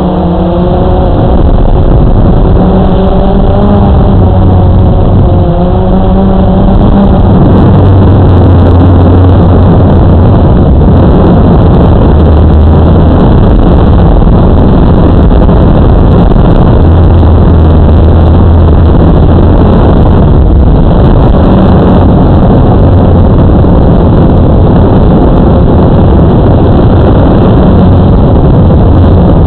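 Multirotor drone's electric motors and propellers whirring loudly, picked up by the camera mounted on the aircraft, with wind rushing over the microphone. For the first several seconds the motor pitch rises and falls as it manoeuvres, then it settles into a steadier hum.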